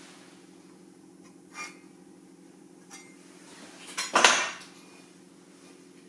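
Welded steel joystick bracket clinking as it is handled, then clanking loudly onto the workbench about four seconds in, over a steady low hum.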